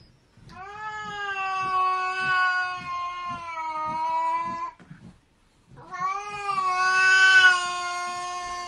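A cat yowling in two long, drawn-out calls at a nearly steady pitch, with a short pause between them.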